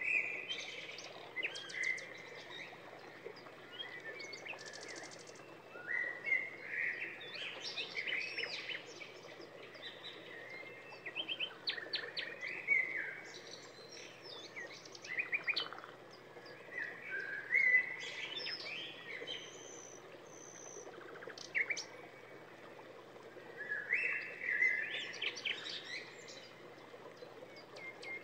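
A songbird singing: bursts of chirps, trills and quick pitch glides, a new phrase every few seconds.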